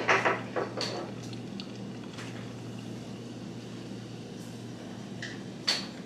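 Beer poured from a bottle in a thin stream into a glass part-filled with michelada mix, a faint steady pouring hiss. There are a few short knocks of glass in the first second and another near the end, over a constant low hum.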